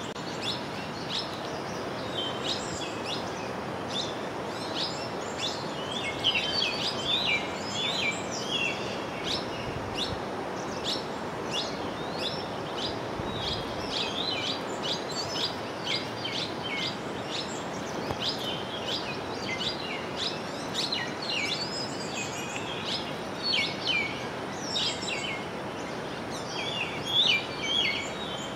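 Many small birds chirping, with short, quick calls, over a steady rushing noise.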